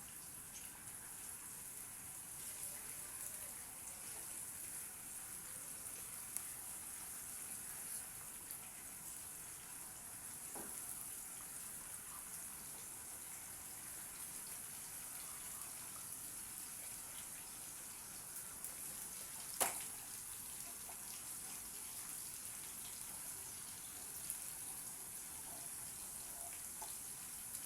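Chopped onion sizzling in hot groundnut oil, a steady high hiss with faint crackle. One sharp knock comes about twenty seconds in.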